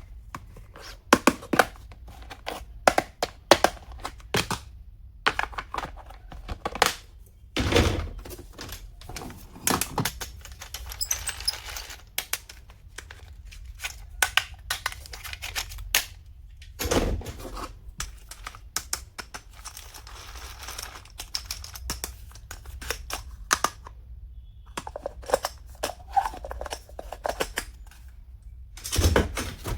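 Stationery and its packaging being handled close to the microphone: an irregular run of sharp clicks and knocks, with brief spells of rustling.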